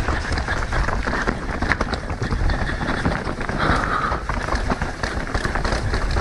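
Mountain bike ridden fast down a rocky technical trail: tyres rolling and knocking over rocks, with the bike rattling throughout.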